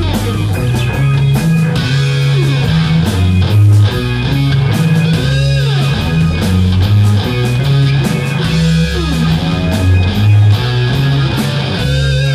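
Rock band playing live without vocals: electric guitars over a heavy low bass line and steady drums, with the lead guitar bending notes up and down.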